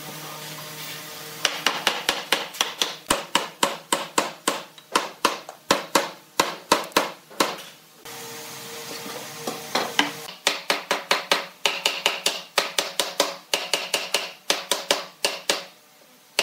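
Wooden mallet striking a wooden bench leg, driving its tenon down into a mortise in the slab seat. There are two runs of quick, sharp taps, about four a second, with a pause of about two seconds in the middle.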